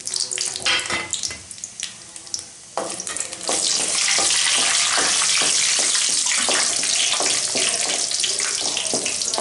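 Whole spices (cinnamon and bay leaves) sizzling in hot oil in a stainless steel kadai, with a wooden spatula scraping and stirring them. The sizzle turns loud and steady about three and a half seconds in.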